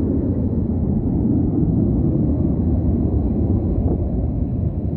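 Wind buffeting the microphone: a loud, steady low rumble with no clear tones.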